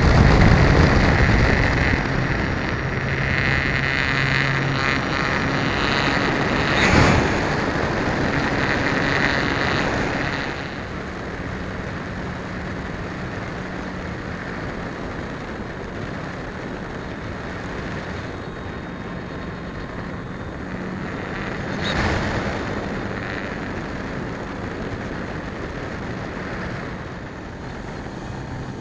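Electric motor and propeller of an E-Flite Apprentice S15e RC plane running in flight, heard from a camera mounted on the plane, with wind rushing over the microphone. The motor sound gets quieter about ten seconds in, as if throttled back, and brief gusts of wind noise come at about 7 and 22 seconds.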